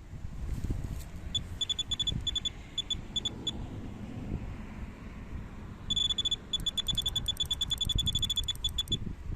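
Electronic bite alarm on a fishing rod sounding: short high-pitched bleeps in irregular bursts, then a faster, near-continuous string of bleeps in the second half, the sign of a fish taking the bait and pulling line. A steady low rumble runs underneath.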